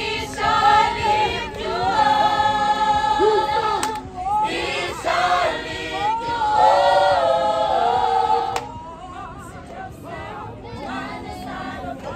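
A choir of young singers singing in harmony, holding several-voice chords. About eight seconds in the singing drops to a softer passage.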